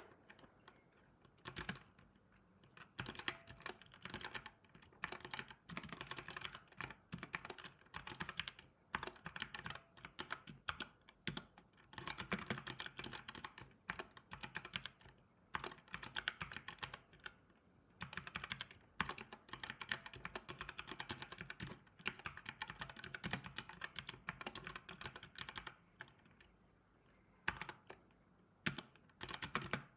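Typing on a computer keyboard: fast runs of key clicks broken by short pauses.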